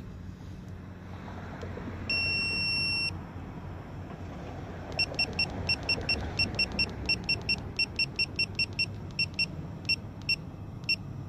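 Snap-on digital torque wrench beeping as its buttons are pressed: one long beep about two seconds in, then a run of short key-press beeps, about four a second, as the torque setting is stepped down toward 22 ft-lb. A steady low hum runs underneath.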